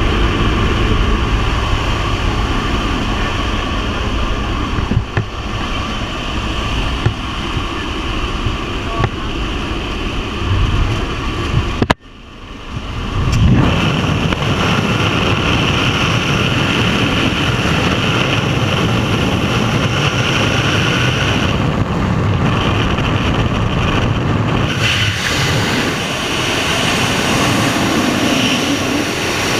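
Jump-plane cabin with the door open: propeller engine drone mixed with wind rushing past the door. About twelve seconds in the sound drops out briefly, then a steady, louder rush of wind across the helmet camera builds up as the skydiver goes out the door and falls free.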